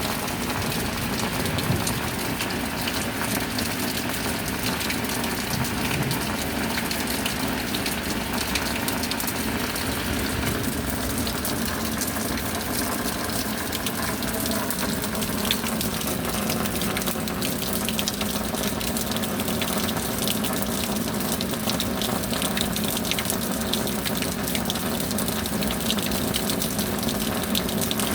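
Steady rain falling, a dense patter of drops over a continuous rushing hiss.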